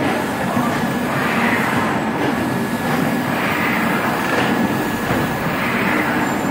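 A 40-mould pizza cone making machine running: a steady mechanical clatter and hum with a faint high whine. The noise swells about every two seconds.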